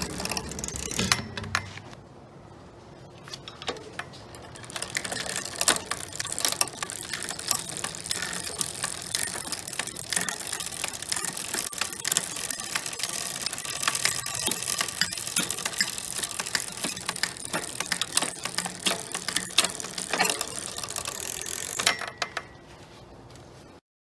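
Bicycle drivetrain being worked: the chain runs over the rear cassette and derailleur pulleys with dense, irregular ratcheting clicks. It eases off briefly a couple of seconds in, then resumes and stops near the end.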